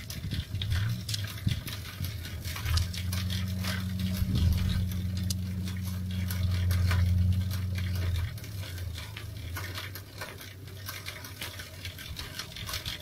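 Small irregular clicks and ticks from a bicycle chain and drivetrain while the chain is oiled from a squeeze oiler. A low steady hum runs under it from about three seconds in to about eight seconds in.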